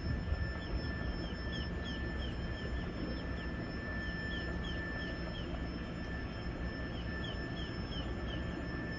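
Background ambience: a steady low rumble with a string of short, high, falling chirps and a faint steady high tone.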